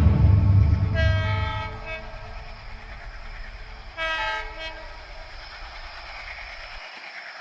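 Train horn sounding twice, two short blasts about three seconds apart, the second louder, over a low train rumble that cuts off suddenly near the end.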